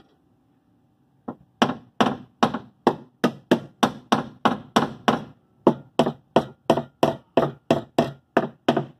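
Steady hammer blows on car body sheet metal, about three a second, straightening a dent while a cable power puller holds the panel under tension. The blows start about a second in and pause briefly just past halfway.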